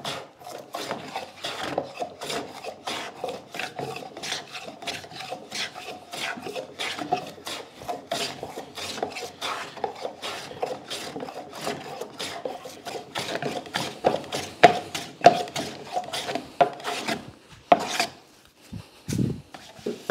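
Hand plane taking quick, repeated strokes across the side of a dovetailed wooden drawer held in a vise, each stroke a short rasping shave. The strokes work from the edge inward so as not to break out the dovetail tails and pins. They let up briefly near the end.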